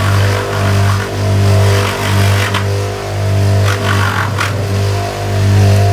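Bench grinder motor running with a cloth buffing wheel, a steady hum that swells and dips about once a second. Brief rasps at about two and a half seconds and again around four seconds as the Kydex holster edge is pressed to the wheel for polishing.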